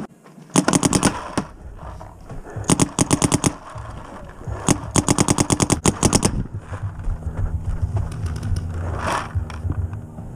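Paintball marker firing three quick strings of shots at about ten a second. The last string is the longest and stops about six seconds in.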